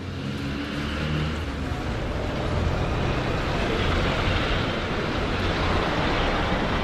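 Street traffic noise with a bus engine running as the bus passes close. The noise swells over the first couple of seconds and then holds steady.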